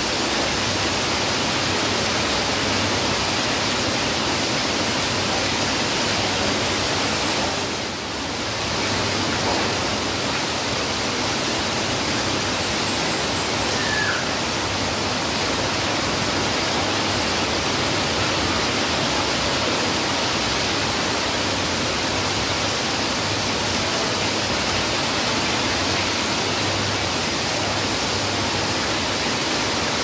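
Heavy rain falling steadily, with water streaming off a roof edge. The loudness dips briefly about eight seconds in.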